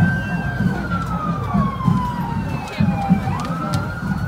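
Emergency vehicle siren wailing. Its pitch holds high, falls slowly over about three seconds, then sweeps quickly back up near the end. A low, regular beat pulses underneath.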